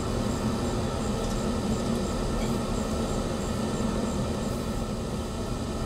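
King KP130 pellet stove running on high heat, its room fan blowing at a high speed and making a steady hum.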